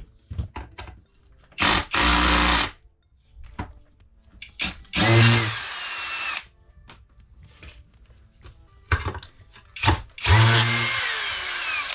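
Cordless drill-driver running out screws from a metal housing in three bursts of whirring, each one to two seconds long, with clicks and knocks of handling and loosened screws between them.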